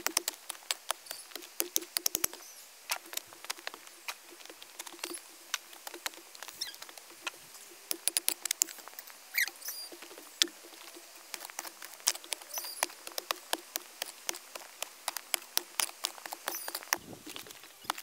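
Light rain: drops pattering in many sharp, irregular clicks, thickest at the start.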